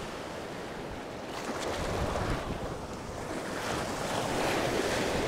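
Surf washing in around the legs in the shallows, with wind buffeting the microphone; the wash swells from about a second in.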